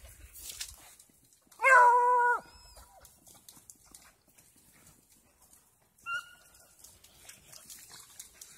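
Rabbit hound giving voice on a rabbit's track: one loud, drawn-out bay about two seconds in, then a short, fainter, higher cry about six seconds in.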